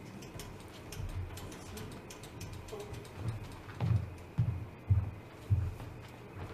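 Footsteps of several people stepping off a raised platform: four low thuds about half a second apart in the second half, with faint clicks and shuffling before them.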